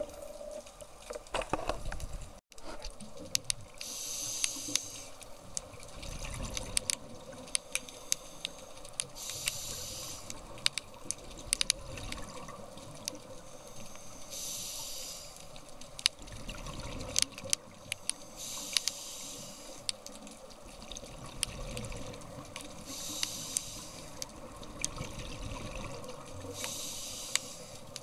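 Scuba diver breathing underwater through a regulator: a bubbling hiss of exhaled air about every four to five seconds, with scattered sharp clicks between.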